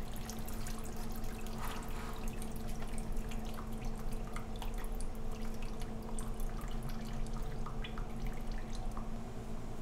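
Engine coolant dripping and trickling out of the drain holes of a two-stroke Kawasaki KX250 during draining of the cooling system, a scatter of small drips over a steady low hum.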